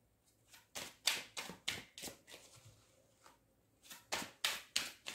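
A tarot deck being shuffled by hand, the cards giving quick sharp slaps. One run of slaps comes about a second in and another near the end.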